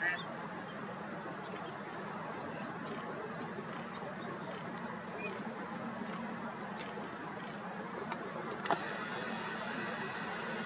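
Steady outdoor background hiss with a thin, high, steady tone over it. A single sharp click comes about nine seconds in, after which the hiss is slightly louder.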